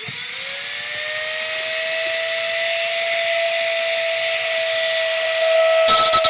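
Power drill motor spinning up to speed with a steady whine, then biting into a steel rivet near the end with a loud harsh grinding as the rivet is drilled out.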